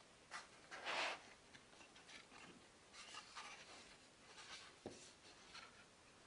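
Faint rustling and sliding of paper pages as a fold-out concertina photobook is opened out by hand, in short scrapes, the loudest about a second in, with a soft knock a little before the end.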